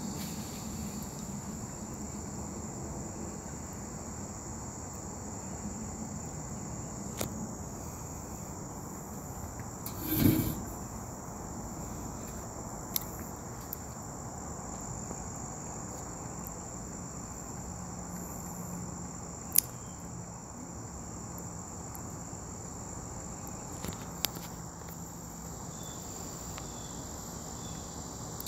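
Steady insect chorus, a continuous high-pitched buzz, broken by a few sharp clicks and one short, loud noise about ten seconds in.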